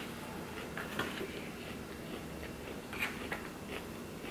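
A person chewing food close to the microphone, with scattered soft clicks, among them a fork against a plastic takeout tray near the end.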